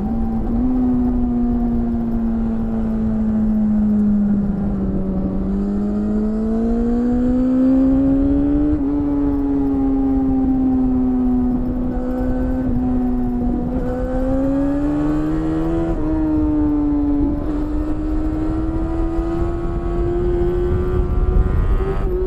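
BMW S1000RR inline-four with an Akrapovic exhaust, heard from onboard while riding at steady cruising speed. The engine note dips, rises and holds steady with the throttle, with a few brief jumps in pitch, over a low rush of wind.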